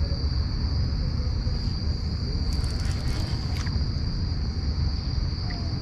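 Steady, high-pitched drone of an evening insect chorus over a constant low rumble, with a few faint clicks near the middle.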